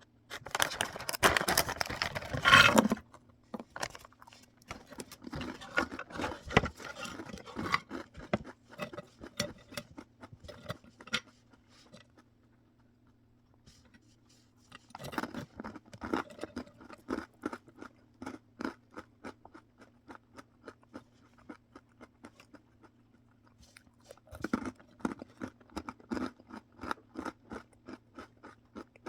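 A crunchy snack being chewed close to the microphone: runs of crisp crunches, about two or three a second, separated by short pauses, with a louder, denser crackle in the first few seconds.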